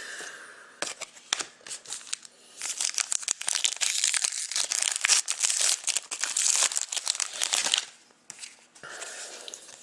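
Trading-card pack wrapper crinkling and tearing as it is handled and opened, a dense crackly rustle for about five seconds in the middle, with lighter rustles before and after.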